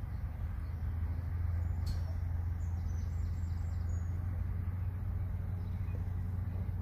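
An engine running steadily with a low drone, with a faint click about two seconds in.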